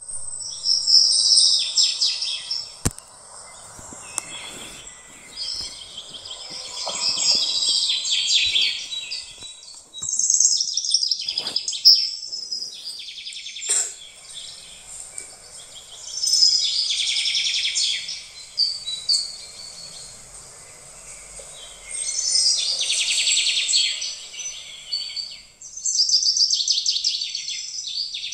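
Birdsong: bursts of high, rapid trilling phrases every few seconds over a steady high-pitched hiss, with a few sharp clicks.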